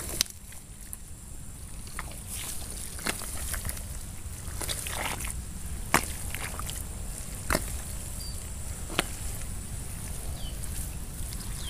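Bare hands digging and squelching in wet mud, with short wet slaps and sloshes every second or two.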